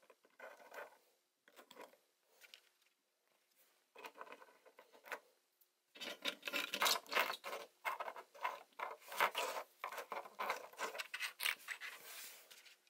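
Small plastic toy figures and toy vehicles being handled and set down on a tabletop: light clicks, rubbing and scraping, scattered at first and much busier from about halfway through.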